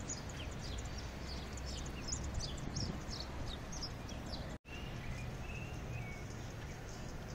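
Outdoor park ambience: birds chirping in quick high calls, thickest over the first four seconds, over a steady low background rumble, with a brief break in the sound about four and a half seconds in.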